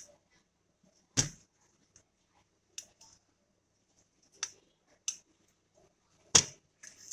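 A flat metal spatula pressed down through soft steamed dhokla, its edge clicking against the steel plate beneath as the dhokla is cut into pieces. About six sharp clicks at irregular intervals; the one about a second in and the one near the end are the loudest.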